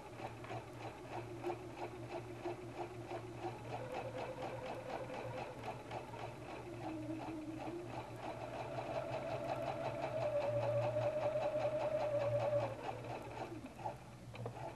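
Husqvarna Viking Platinum 770 sewing machine running a straight topstitch: a rapid, even needle ticking over a motor hum and whine. The machine speeds up and the whine climbs in pitch and grows louder two-thirds of the way through, then it stops shortly before the end.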